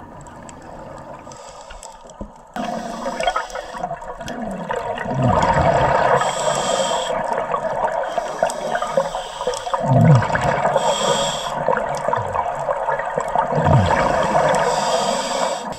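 Scuba diver breathing through a regulator underwater: a hiss of inhaled air roughly every four seconds, between rushing, bubbling exhalations. It is quieter for the first couple of seconds.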